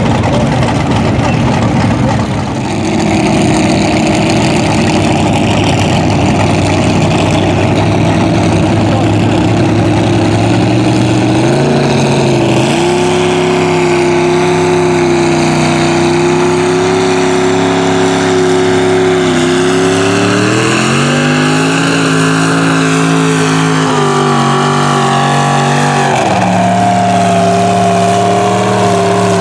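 Lifted mud truck's engine running hard under load as it pushes through deep water. Its pitch holds for stretches, then rises and falls several times, over the hiss of water spray.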